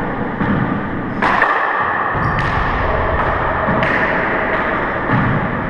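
Rubber handball being struck by hand and rebounding off the walls and floor of an enclosed four-wall court: several sharp, echoing smacks, the loudest about a second in.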